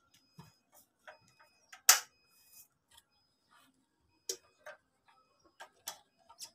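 Scattered small clicks and taps from hands handling the controls and plastic shroud of a GX200-type gasoline engine that is not running. The loudest click comes about two seconds in, with another sharp one a little past four seconds.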